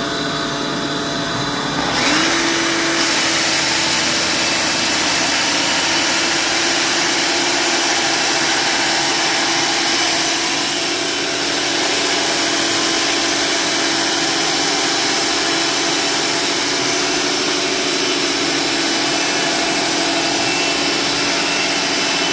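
An engine running steadily; about two seconds in it speeds up, its hum rising quickly to a higher steady pitch that then holds.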